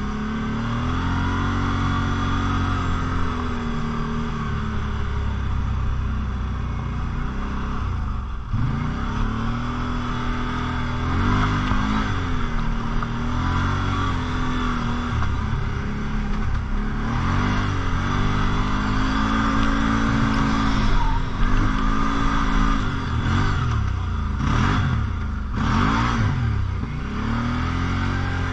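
Quad bike engine running under load. Its pitch rises and falls over and over as the throttle is opened and closed, drops briefly about eight seconds in, and rises and falls in several quick revs in the second half.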